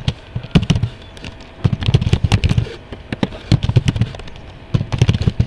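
Typing on a computer keyboard: about four short runs of rapid keystrokes, each key a sharp click with a dull thud.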